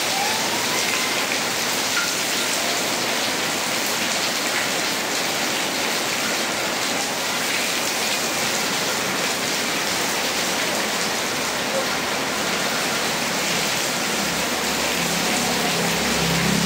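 Heavy rain falling steadily, a constant even hiss of rain on surfaces. A low hum joins about fifteen seconds in.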